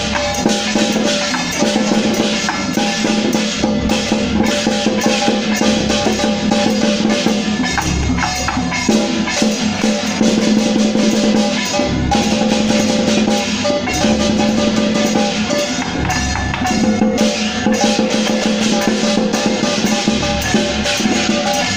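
Temple-procession percussion music played continuously: drums beaten rapidly with clashing cymbals and gongs, and a held, pitched melody line sounding over them.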